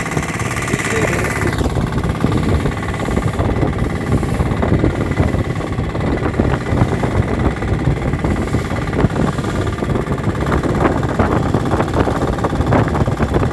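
A boat's engine running steadily while under way, with a dense rough noise and many short knocks over it.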